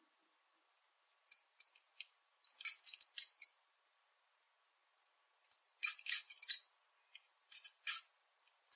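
Short, high-pitched squeaks and chirps from a small animal, coming in quick clusters with silent gaps between them.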